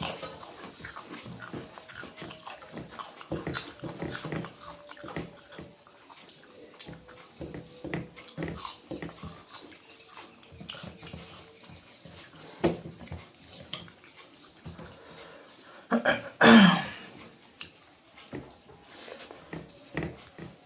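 People eating a Bengali meal: chewing and mouth sounds, with many short scattered clicks and small crunches, and one louder burst about two-thirds of the way through.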